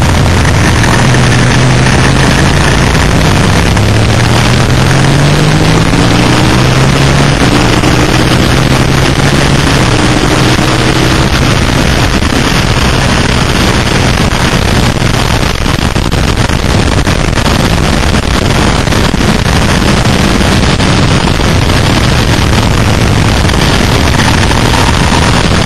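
Suzuki SV650's V-twin engine under hard acceleration, its note climbing and dropping back in steps through the upshifts in the first ten seconds or so, then running steadier. Heavy wind rush on the microphone covers it throughout.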